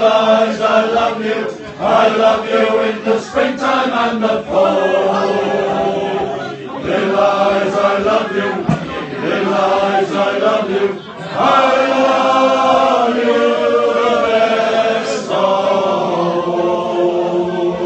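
A crowd of voices singing together, holding long notes in phrases a few seconds apart with brief breaks between them.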